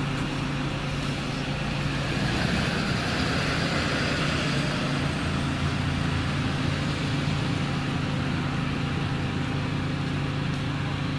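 A car driving at a steady speed: an even engine hum under steady road and tyre noise.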